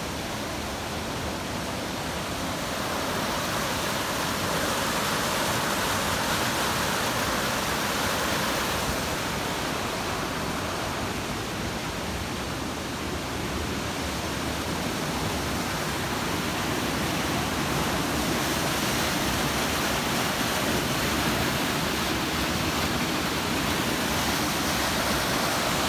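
Steady rush of water pouring out of a large spring.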